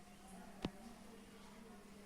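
A single sharp click about two-thirds of a second in, over a faint steady hum.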